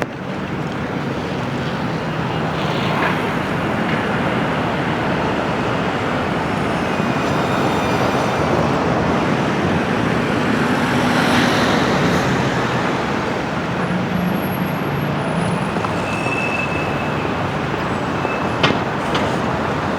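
Busy city street traffic: a steady wash of vehicles passing, growing louder about halfway through, with two short sharp clicks near the end.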